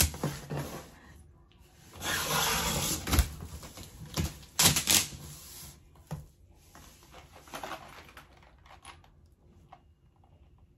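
Packaging and chair parts being handled while a boxed chair is unpacked: a stretch of rustling, with scattered clicks and knocks, the loudest about three and five seconds in, dying down to a few light taps near the end.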